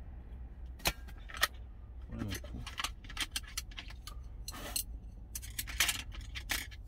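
Irregular light metallic clinks and rattles from handling an insulated food jar and eating utensils, over a steady low rumble.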